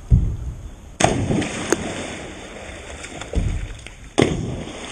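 Two loud splashes, one about a second in and another about three seconds later, each a sudden crash of water into a swimming pool that dies away over a second or so, as people jump into it. A dull thump comes right at the start.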